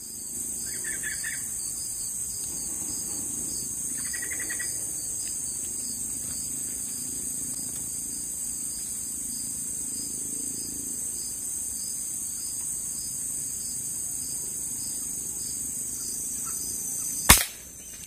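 Steady high-pitched insect chorus, with two short trilled chirps in the first five seconds and one loud sharp crack near the end.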